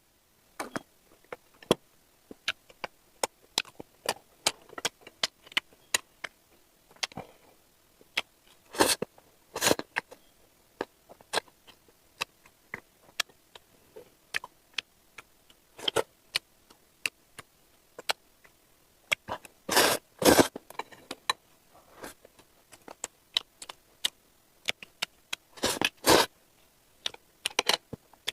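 Close-miked mukbang eating of stir-fried instant noodles: a steady run of small wet chewing and mouth clicks, with a few louder, longer bursts of eating noise spread through.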